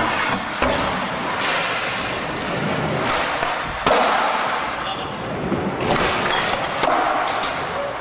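Skateboard wheels rolling on a smooth concrete floor, with sharp board clacks and landing thuds from tricks, about a second in, near four seconds in and around six seconds in.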